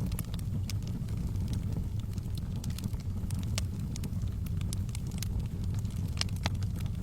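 Fire burning in a fireplace, with a steady low rumble and scattered sharp crackles and pops. A few louder pops come close together about six seconds in.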